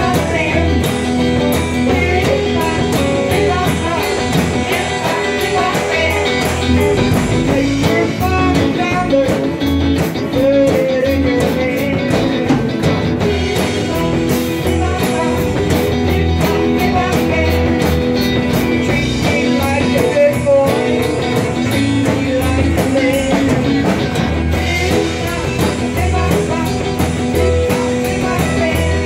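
Live band playing a rock song, with several acoustic guitars and an electric guitar and a woman singing lead into a microphone.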